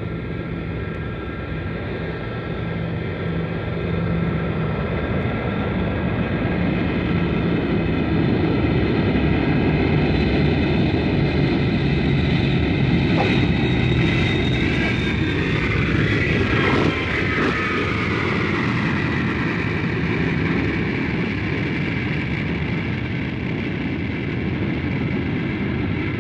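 Jet aircraft landing: a steady turbine whine over engine rumble, growing louder as it approaches. Around the middle the whine glides down in pitch as it passes, then it eases off a little.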